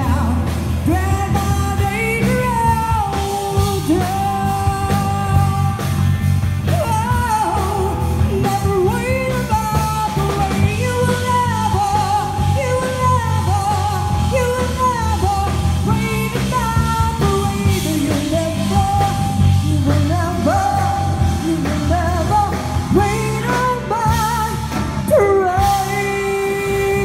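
A woman singing a rock song live into a microphone, backed by electric guitars, with the sung melody carried over a steady low band accompaniment.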